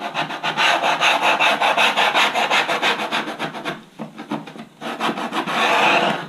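Hand sanding of foam at a wing's hinge line, sandpaper rubbed in rapid back-and-forth strokes to flatten a small lump left by the hinge cut. The strokes pause briefly about four seconds in, then resume and stop abruptly.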